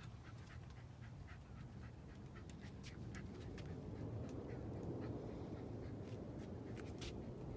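A dog breaking wind: a low, drawn-out fart from about three seconds in, after a run of light clicking.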